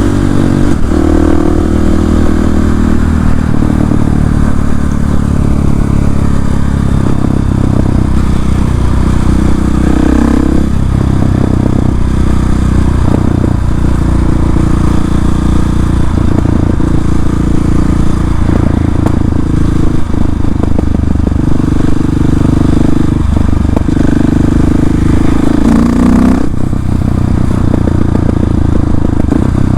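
KTM 690 SMC-R single-cylinder engine running loud through an Arrow exhaust with the dB-killer removed, ridden with the engine note rising and falling several times as the throttle is opened and closed.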